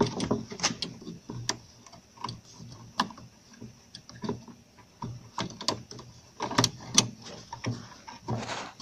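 Irregular small clicks and taps of plastic and metal as fingers work a xenon bulb and its retaining parts into a car headlight housing.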